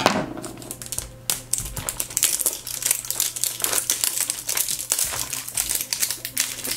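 Clear plastic wrapping crinkling as hands peel it off a plastic blind-box toy bottle: a steady run of quick, irregular crackles.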